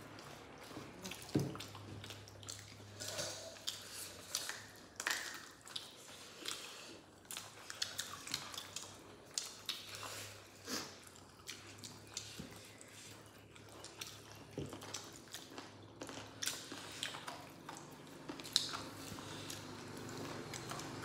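Close-up eating sounds: chewing and lip-smacking, with fingers squishing and mixing rice and curry on a banana leaf, heard as irregular wet clicks and smacks. A faint low hum runs underneath from about a second and a half in.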